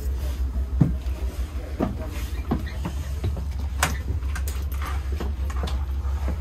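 Amtrak Superliner passenger car in motion, heard from inside: a steady low rumble, with irregular knocks, clicks and rattles from the carriage interior. The sharpest knocks come about a second in and shortly before the four-second mark.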